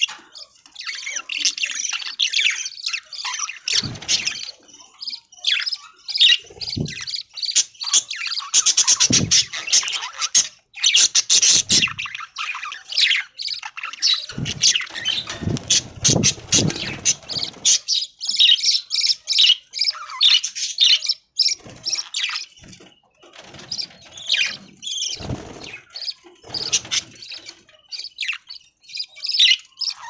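A flock of budgies chattering, a dense, continuous stream of short, fast chirps and warbles. A few low thumps come in among the calls, loudest about halfway through.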